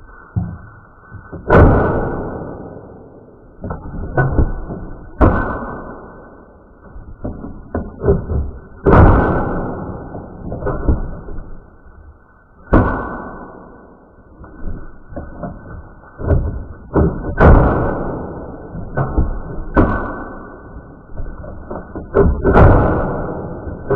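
A toy cap gun firing again and again: a string of sharp bangs at uneven intervals, roughly one every second or two, each ringing out for about a second inside a cardboard box.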